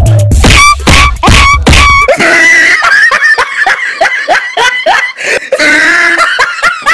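A person laughing hard in a fast run of short 'ha-ha' syllables, with music and a heavy bass line under the first two seconds.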